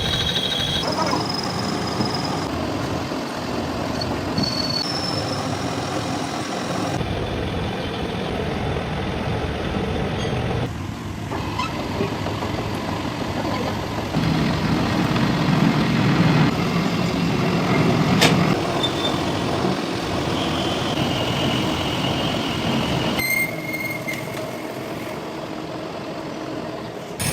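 Heavy workshop machinery running with metalworking noise, in several short clips cut one after another. There is a sharp click about two-thirds of the way through.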